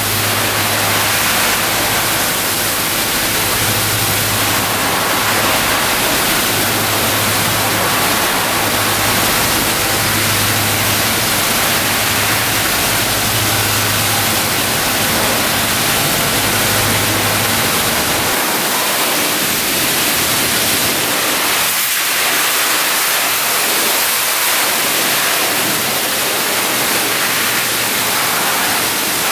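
Pressure washer wand spraying water onto a motorcycle: a loud, steady hiss of spray. A low hum runs underneath and cuts out about two-thirds of the way through.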